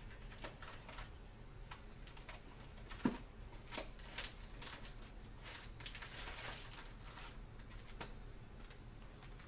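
Light handling at a table: scattered small clicks and taps, one sharper knock about three seconds in, and a brief crinkling rustle around six to seven seconds in.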